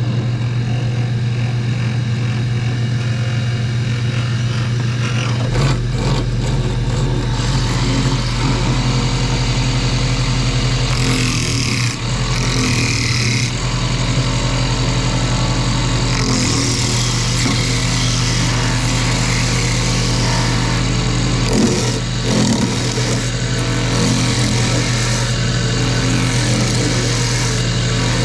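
Metal lathe running steadily with a low motor hum while turning a pulley; a deeper drone joins about five seconds in, and a high hiss of the tool cutting metal comes and goes.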